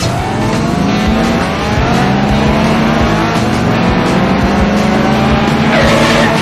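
Race car engines accelerating at full throttle, their pitch climbing slowly and steadily over several seconds.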